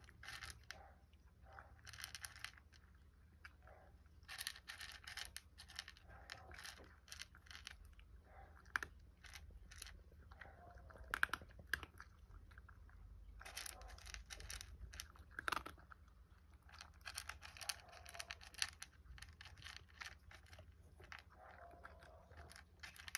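A cat eating from a bowl: faint, quick clusters of chewing and crunching clicks, with short pauses between mouthfuls.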